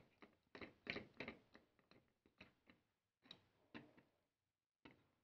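Faint, irregular small clicks and taps of hardware being handled: metal nuts being turned on the threaded rods of a wooden altimeter-bay sled.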